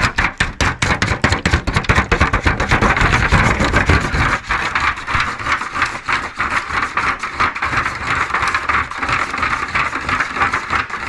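Two eggs being whisked in a bowl: a rapid, steady clicking and scraping of the utensil against the bowl, stopping near the end.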